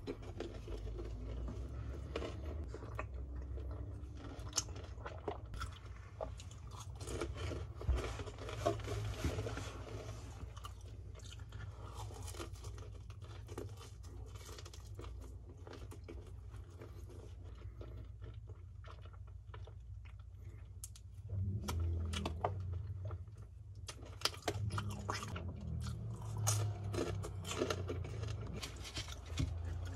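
A person chewing crispy seasoned fried chicken (BHC Bburinkle), with repeated crunching bites of the fried coating. The chewing is quieter for a while midway, then gets louder and denser again.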